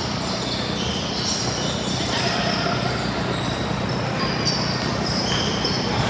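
Basketball game on an indoor court: a ball bouncing and many short, high sneaker squeaks over a steady background hubbub.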